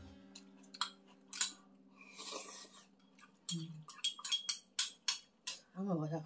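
Metal spoon and chopsticks clinking against a nonstick frying pan and a small bowl while bulgogi broth is spooned out, with a quick run of clinks in the second half. A brief hum of a voice comes at the very end.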